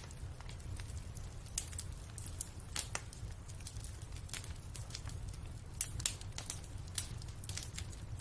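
Fireplace crackling: irregular sharp pops and snaps of burning wood over a steady low rumble.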